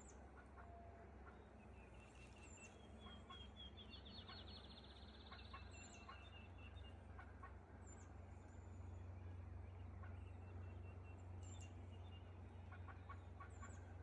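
Wild turkey hens calling faintly with quick clucks and cutting, and no gobbling from a tom. A small bird adds a rapid high trill about four seconds in.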